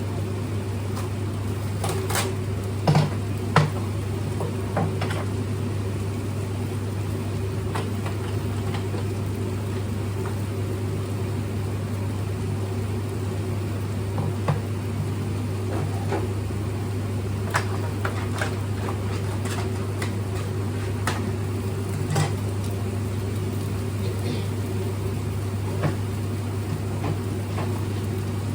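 Steady mechanical hum, such as a kitchen appliance motor or fan, with scattered clicks and knocks of utensils against cookware, the loudest about three seconds in.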